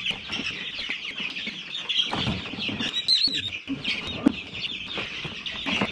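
A brood of many young chicks peeping continuously, with rustling and handling noises as they are caught, and a sharp knock a little after four seconds in.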